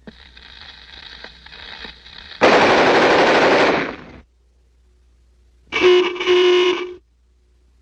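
Cartoon sound effects: after a faint crackling build-up, a loud machine-gun burst for about two seconds, stopping suddenly. A little later comes a short, steady horn-like honk, broken once in the middle.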